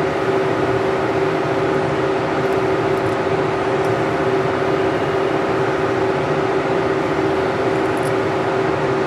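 Steady mechanical hum with one constant low tone, as of a fan or air-conditioning unit running.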